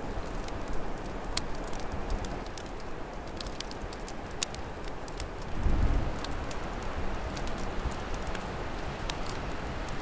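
Open fire crackling with scattered sharp pops, over a steady low rush of storm wind that swells in a gust about six seconds in.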